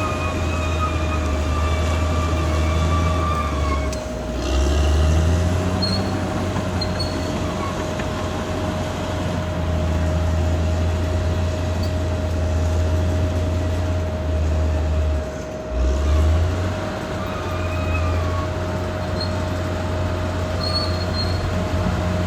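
Caterpillar D6R XL bulldozer's diesel engine running under load, a steady deep drone with a constant whine above it. The engine dips briefly and surges back twice: about four seconds in, and again about two-thirds of the way through.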